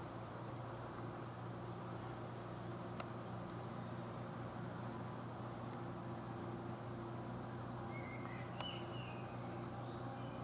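Quiet woodland ambience under a steady low hum. A faint, very high chirp repeats about twice a second, with a few soft clicks and a brief warbling call about eight and a half seconds in.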